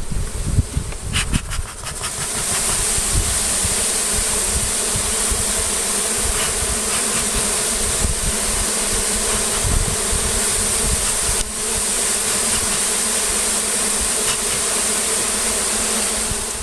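A disturbed honeybee colony buzzing, swelling about two seconds in to a loud, steady buzz with a hiss over it, after a few light knocks.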